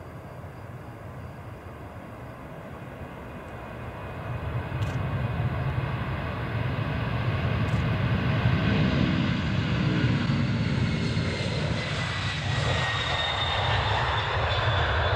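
Airbus A300 jet engines at take-off power during the take-off roll, growing steadily louder over the first eight seconds and then holding loud. Near the end a high whine slides down in pitch as the aircraft passes.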